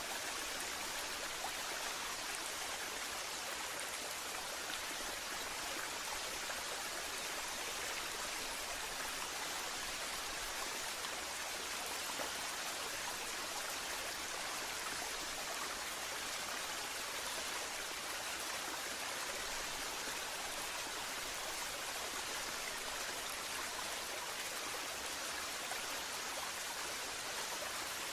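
Waterfall: a steady, even rush of falling water, without change.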